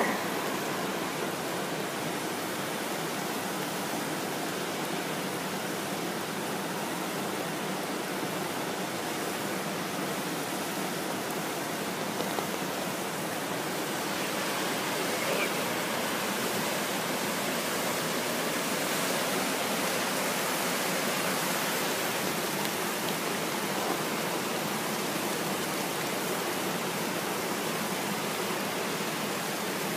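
Steady rush of flowing water, an even hiss that holds without pause.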